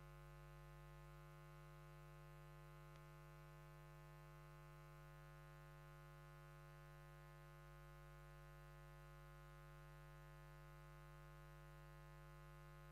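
Near silence: a faint, steady hum with no other sounds.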